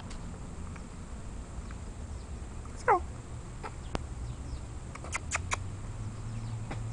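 Shih Tzu puppy giving one short whine that falls in pitch, about three seconds in, followed a couple of seconds later by a few brief high ticks.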